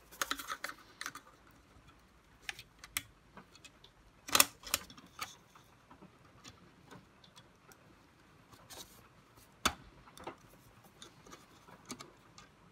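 Small, irregular plastic clicks and taps from the plastic parts and spring of a Dyson DC41 vacuum's cyclone assembly being worked by hand, the spring not yet seated in its slot. Two sharper knocks stand out, one near the middle and one later.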